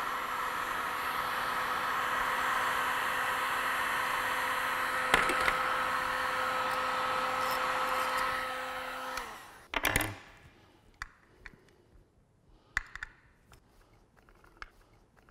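Handheld electric heat gun blowing steadily with a fan whine, warming the adhesive under a plastic reflector. About nine seconds in it is switched off and winds down, followed by a brief clatter and scattered light clicks as the reflector is pried loose.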